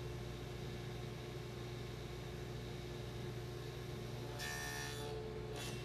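Table saw with a dado stack running steadily, with a short cut across a thin wood strip about four and a half seconds in as a half lap is cut.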